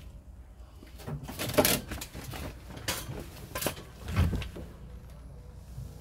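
Handling noise: a string of sharp clicks and knocks, the loudest about one and a half seconds in, and a heavier low thump about four seconds in.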